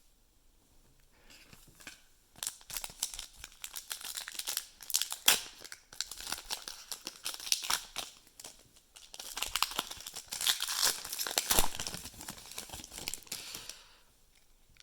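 A foil-wrapped trading-card pack being torn open and its wrapper crinkled, in several bursts of crackling with short pauses between them.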